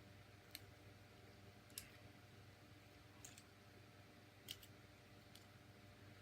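Faint clicks from the plastic joints and parts of a Transformers Solus Prime action figure as it is handled and transformed, about five separate light clicks spread out over a steady low hum.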